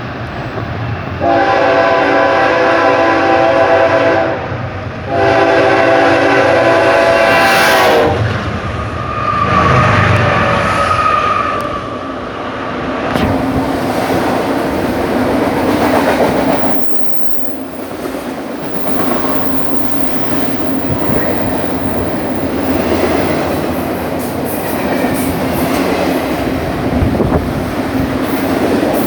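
A locomotive's multi-chime air horn sounds two long blasts at very close range. The chord slides lower at the end of the second blast. The train then rolls past with a steady loud rumble of wheels on the rails.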